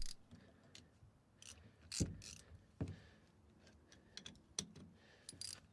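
Faint, irregular clicks of a socket ratchet and metal tool contact as a shifter bolt is worked at an awkward angle.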